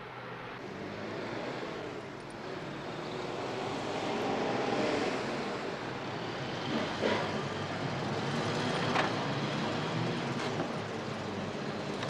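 A car engine running as a saloon drives along a street, growing louder over the first few seconds as it approaches, with a few sharp clicks in the second half.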